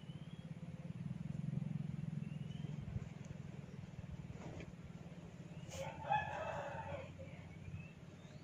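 A rooster crows once, about six seconds in, a single call of about a second. Under it runs a steady low hum, with a few faint short bird chirps.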